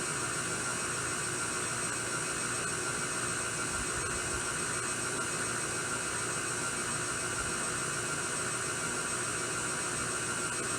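KitchenAid stand mixer running steadily, its motor whirring as it mixes thin chocolate cupcake batter.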